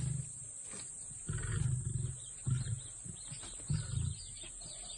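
Lions growling: a series of about four short, low, rumbling growls with pauses between them.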